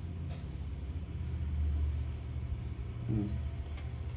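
A steady low rumble runs throughout, with a brief murmured voice sound about three seconds in.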